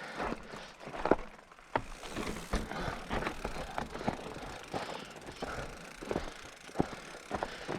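Mountain bike rattling and clattering over rough trail, with irregular sharp knocks over a low rumble from the tyres and frame.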